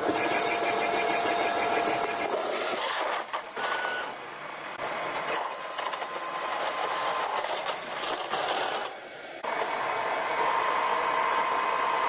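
Metal lathe turning a large steel cylinder as a tool cuts threads into it, a steady machining noise with a brief drop in level about nine seconds in.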